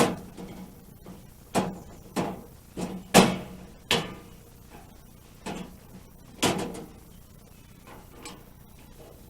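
A run of about nine sharp, irregular knocks and clanks, the loudest a little over three seconds in, as hand tools work on the blade guide of a Woodland Mills HM126 band sawmill during its adjustment for a new blade.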